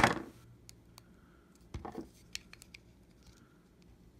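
Metal tweezers with a clip-on LED light being handled in the fingers. A sharp click at the start, then a few faint ticks and a short rustle about two seconds in.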